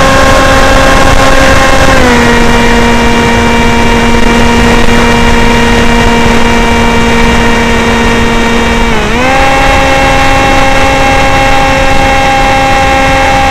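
Sky Shadow S800 flying wing's electric motor and pusher propeller heard from onboard in flight: a steady whining tone with a rushing hiss of airflow beneath it. The pitch steps down about two seconds in as the throttle eases. About nine seconds in it dips briefly, then comes back a little higher.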